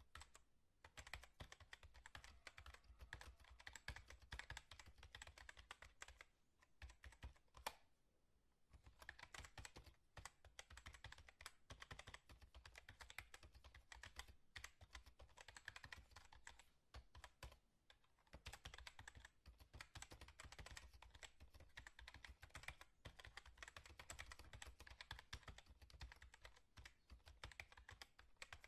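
Faint, fast typing on a computer keyboard: a dense run of key clicks with a few short breaks.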